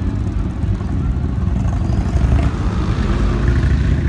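A vehicle engine running steadily with a low, even rumble.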